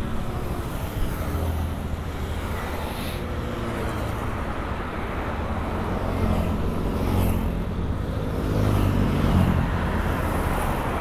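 TVS Ntorq 125 scooter's single-cylinder engine running steadily at cruising speed, mixed with wind and road noise on a microphone inside the rider's helmet.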